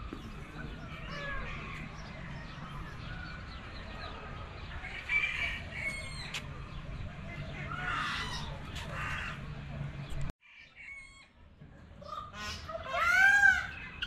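Roosters crowing and chickens clucking among other bird calls, with one loud crow near the end.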